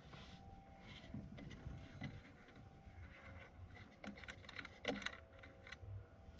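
Faint hand work under a car's dashboard: small clicks, taps and rustling of tools and wiring, with a cluster of sharper clicks about five seconds in, over a faint steady hum.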